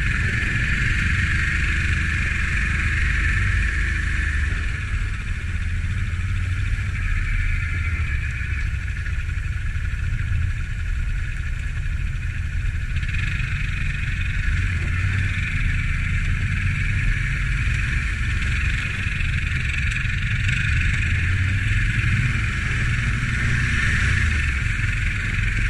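Can-Am ATV engine running steadily at slow trail speed. The engine gets somewhat brighter and louder about halfway through.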